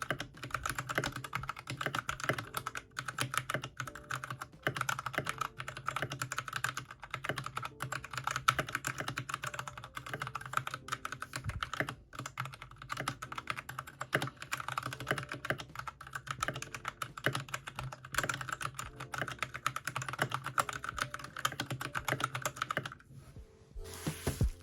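Mechanical keyboard being typed on quickly and continuously, a dense stream of key clacks. It stops about 23 seconds in, and background music comes in near the end.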